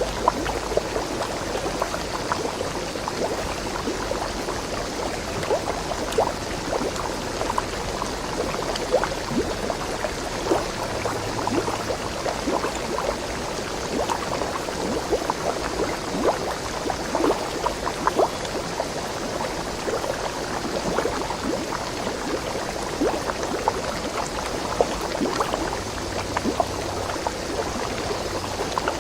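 A stream of water splashing and gurgling steadily over rocks, a continuous rush with many small bubbling splashes.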